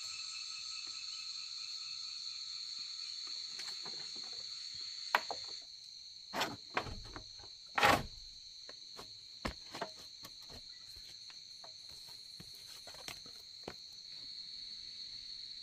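Crickets chirring in a steady high-pitched chorus. A few sharp knocks and clicks come between about five and ten seconds in.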